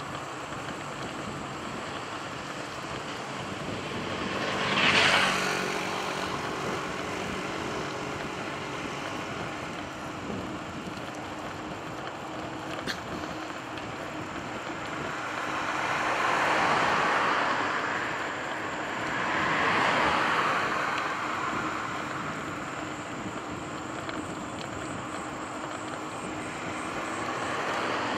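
Motor vehicles passing on the road over a steady rush of riding noise. One passes quickly about five seconds in, and two more swell up and fade a few seconds apart later on.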